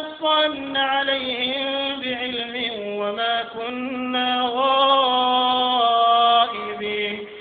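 An imam's solo male voice chanting Quran recitation in the melodic tajweed style, in long phrases with drawn-out, ornamented notes.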